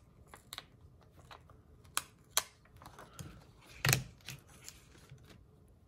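Scattered soft clicks and rustles of sticker sheets and paper being handled. The loudest is a sharp tap just before four seconds in.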